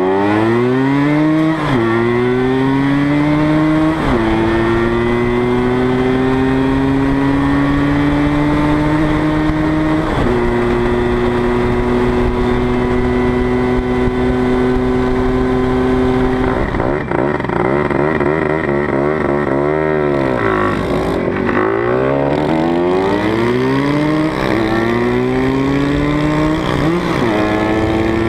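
Tuned two-stroke Vespa engine (PX 150 bottom end with a Quattrini M1X 172 cc cylinder and 60 mm long-stroke crank, Falk Elron expansion pipe) pulling hard under way. Its pitch climbs and drops back sharply about 2 and 4 seconds in as it shifts up, then holds nearly steady. It falls and rises unevenly for a few seconds past the middle, then climbs again near the end, over wind rush.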